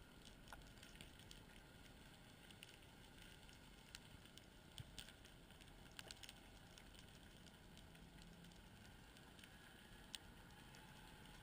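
Near silence: a faint steady hiss with scattered faint, sharp clicks.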